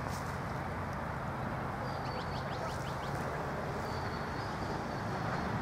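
Steady outdoor background noise with a low rumble, and a few faint high chirps about two seconds in.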